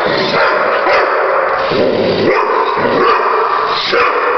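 A dog barking and yipping in repeated short bursts, over a steady loud whirring noise that fits a radio-controlled toy car's motor.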